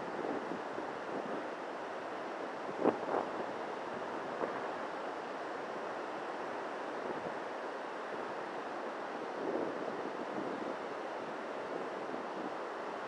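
Surf washing and breaking on a sandy beach, a steady rushing noise, with wind buffeting the microphone. A single brief knock about three seconds in stands out as the loudest moment.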